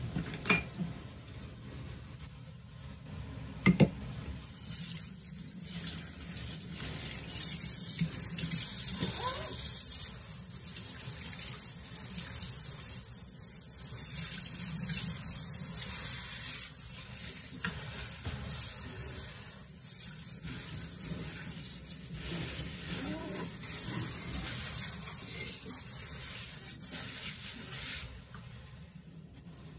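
Two sharp knocks, then a kitchen tap runs steadily into the sink, water splashing over the dishes being rinsed, until it shuts off near the end.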